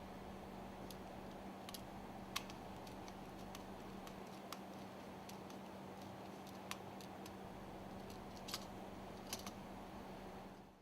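Light, sparse clicks and ticks of small parts being handled while wires are connected in a terminal box, about a dozen irregular clicks over a steady faint hum.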